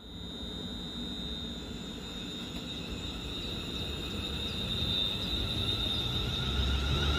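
Two coupled Class 350 Desiro electric multiple units running in along the platform, their rumble on the rails growing steadily louder, with a high steady whine held over it.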